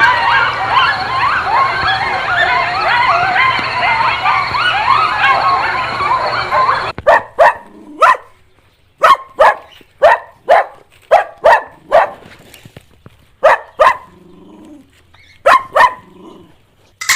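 A dense chorus of many overlapping yelping calls, then an abrupt cut about seven seconds in to a dog barking, about fifteen sharp barks in short runs with gaps between them.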